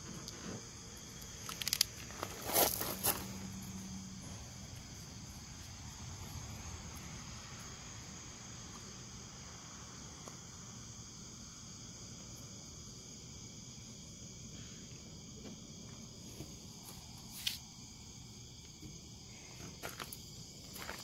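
A steady chorus of night insects, several high continuous tones. Over it come a few brief crackles from handling the pinstripe tape and its backing, a cluster a couple of seconds in and more late on.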